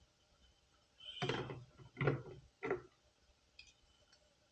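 LEGO plastic parts being handled and pulled apart: three short clattering knocks, about a second in, at two seconds and just under three seconds.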